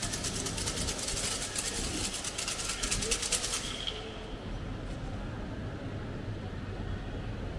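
Outdoor ambience with a steady low hum and voices in the background. A high, rapidly pulsing buzz cuts off about four seconds in.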